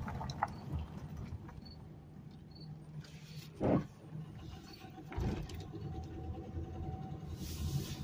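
Car cabin road noise from a car driving slowly over a bumpy gravel street: a steady low rumble, with a short loud thump just under four seconds in and a smaller one about a second later.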